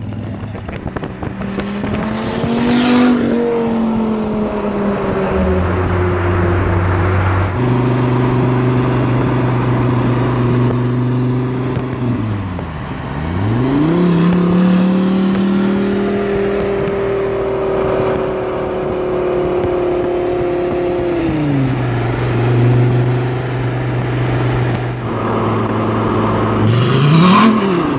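Dodge Viper V10 through loud exhaust pipes, driving and revving: the engine's pitch climbs, holds and falls several times, dropping low and climbing again about halfway, then revving up once more near the end.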